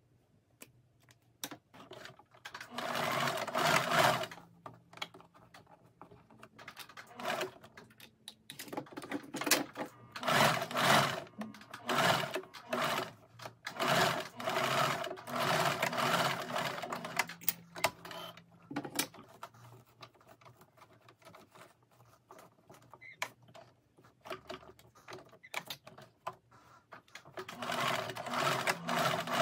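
Singer domestic electric sewing machine stitching a seam in linen fabric, running in several bursts of a few seconds with short stops between. Around the stops there are soft clicks and fabric handling.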